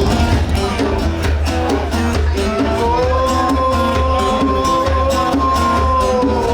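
Background music: a rock song with a steady drum beat and heavy bass, and a singer holding one long note from about halfway through.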